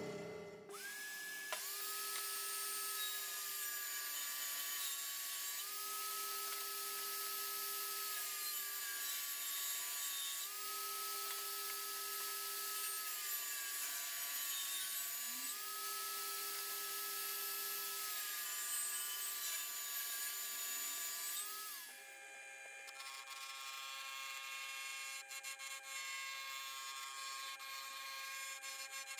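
Benchtop table saw running with a high motor whine and blade hiss while it cuts wood, its pitch dropping and recovering several times as the blade takes load; it stops a little before the end. Then a wood lathe turns a spindle, with a steady hum and the scrape of a gouge on the wood.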